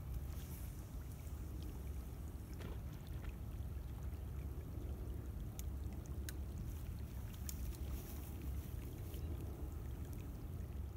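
Wind buffeting the microphone as a steady low rumble, with a few faint clicks over it.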